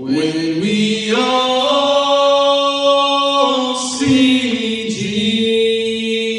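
Two men singing a slow gospel hymn in harmony, holding long notes that step upward, with a brief break about four seconds in before the next held line.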